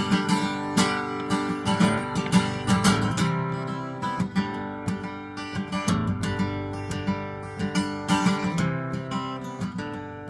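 Acoustic guitar strummed in a steady folk-country rhythm, an instrumental passage with no singing.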